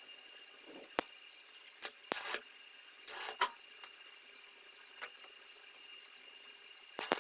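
A few separate sharp clicks and short scraping rattles of metal parts and tools being handled, over a faint steady hum.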